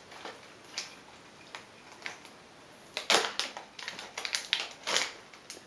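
Plastic toy packaging being handled and pulled open: a few separate clicks, then a dense run of loud crinkling crackles in the second half.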